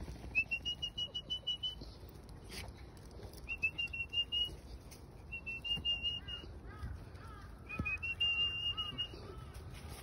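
Four rapid high whistled trills, each a quick run of short notes lasting a second or so. Softer falling chirps come in between the last two.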